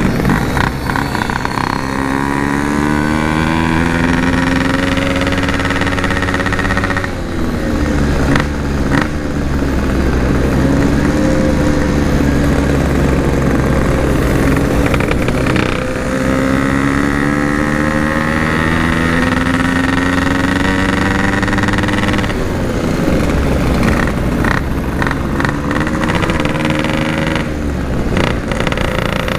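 Yamaha RX-King two-stroke single-cylinder motorcycle engine accelerating under load, its pitch climbing over several seconds twice, with brief breaks for gear changes in between. Wind rumble on the microphone under the engine.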